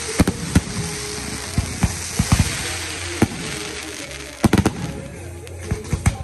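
Fireworks display: many sharp bangs of bursting shells over a dense, continuous hiss. The bangs come in clusters around two seconds in and again past the four-second mark.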